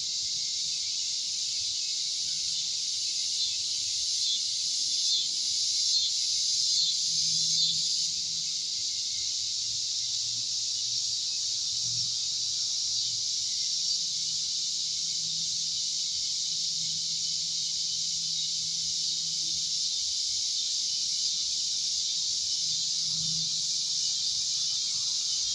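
Steady chorus of summer insects buzzing, high-pitched and unbroken, swelling a little in pulses during the first several seconds. A faint low hum lies under it.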